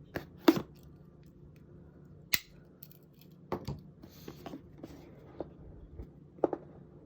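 A cardboard mouse box being handled and opened: a few sharp clicks and taps of packaging, with a brief rustle about four seconds in.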